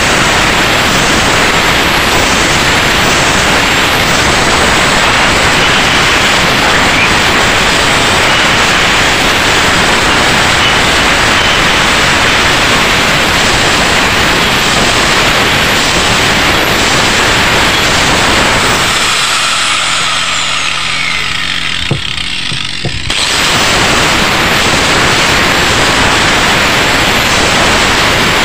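Handheld angle grinder with an abrasive disc grinding the blade of a four-blade Yamaha 15 outboard propeller, reshaping the blade profile. The loud, steady grinding eases off for a few seconds about two-thirds of the way through, with a single click, then returns at full strength.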